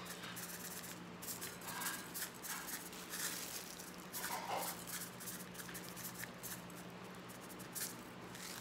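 Faint scratchy rustling and light pattering of coarse salt being sprinkled onto raw chicken wings in a bowl and handled with a plastic-gloved hand, with many small ticks, over a low steady hum.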